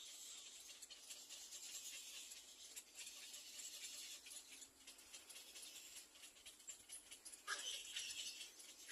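Faint, raspy, hissing sounds from little black cormorant nestlings, with a louder burst of calling near the end.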